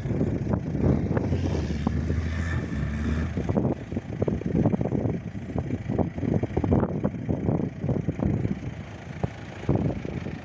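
Gusty wind buffeting the microphone in irregular flutters, over the low engine note of a Land Rover Defender as it descends a steep sand slope.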